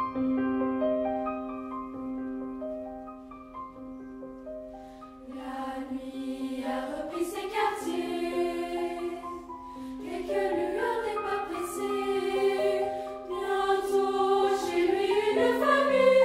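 Piano playing alone at first, then a children's choir comes in singing about five seconds in, with the piano accompanying and the music growing louder toward the end.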